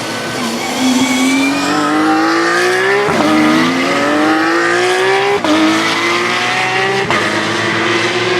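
Race car engine accelerating hard through the gears: its pitch climbs steadily, drops sharply at three upshifts about three, five and seven seconds in, and climbs again after each.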